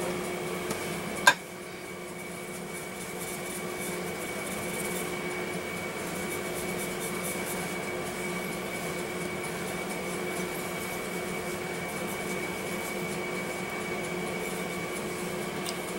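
A clay pendant set down on a marble tabletop with one sharp tap about a second in, followed by a steady background hum with a thin, high, constant whine.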